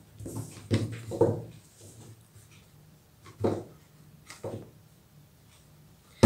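Handling noises from fitting a phone into a tripod's plastic spring-clamp phone holder: a few scattered short knocks and clicks, a cluster in the first second or so and more around the middle.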